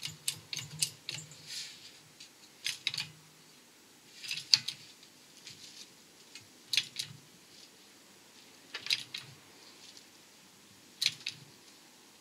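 Hand lever of a 6-ton hydraulic shop press's bottle jack being pumped, a short cluster of metallic clicks about every two seconds as the ram presses the old wheel bearing out of the hub carrier.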